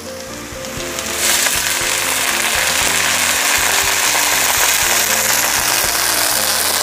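Water poured from a jug into a hot stone-coated wok of sautéed aromatics, hissing as it hits the hot oil and pan. It starts about a second in and goes on steadily.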